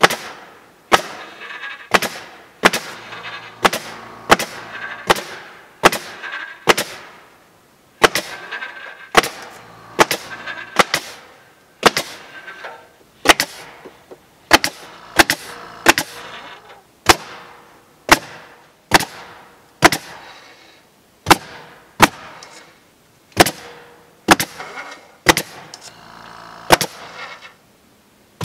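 Senco pneumatic crown stapler firing staples into cedar shingles: a long run of sharp, loud shots, about one to two a second at uneven spacing.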